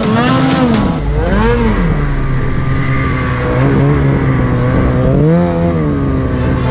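Snowmobile engine running under load through deep snow, its revs surging up and falling back three times, about half a second, a second and a half, and five and a half seconds in, with steadier running between.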